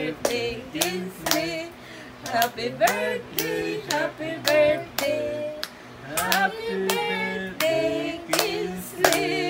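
A person singing a children's song and clapping hands in time, about two claps a second.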